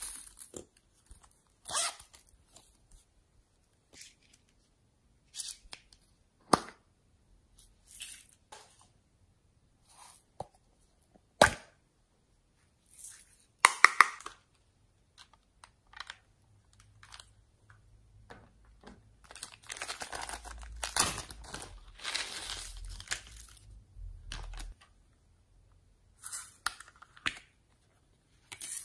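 Slime being squeezed and worked by hand: scattered sticky pops and crackles, with a denser run of crackling about two-thirds of the way through.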